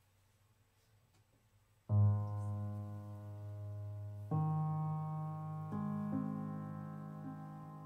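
Grand piano: after about two seconds of near quiet, a low chord is struck and left to ring, then new chords come in about four and six seconds in, each held and slowly fading.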